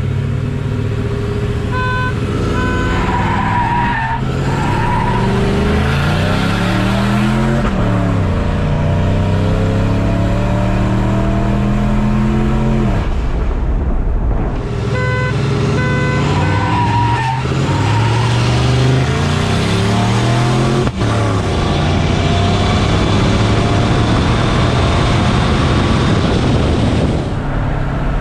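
Turbocharged 5.4-litre V8 of a Ford F-150 at full throttle from a standstill, heard from inside the cab, its pitch climbing and dropping back at each upshift; a second full-throttle pull starts about halfway through. A pair of short beeps sounds near the start of each pull.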